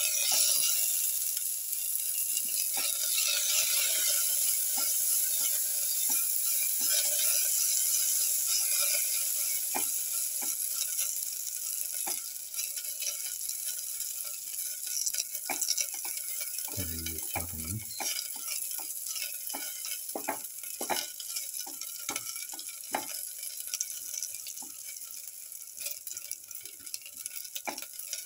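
Shallots, garlic, ginger and mint leaves sizzling in hot oil in a steel pot while a plastic spatula stirs them, scraping and tapping against the pan. The sizzle is loudest at the start and slowly dies down, with a brief low bump about 17 seconds in.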